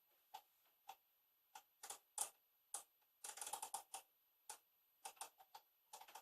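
Faint, irregular small clicks and taps, about a dozen, with a quick run of them about three seconds in.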